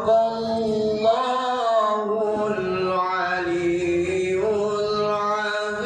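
Quran recitation (tilawah) chanted by a single voice in long, melodic held notes that glide slowly up and down in pitch.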